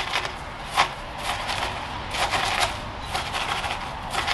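A chopstick jabbing and stirring in gritty bonsai soil in a pot: a crunchy rattle of granules with frequent sharp clicks, as the soil is worked down under the roots to fill the gaps.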